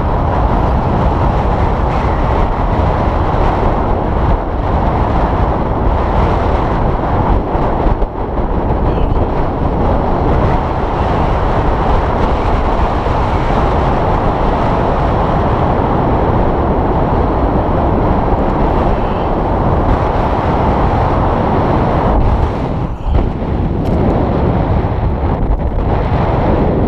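Strong wind buffeting the camera's microphone: a loud, steady rumbling rush that dips briefly a couple of times.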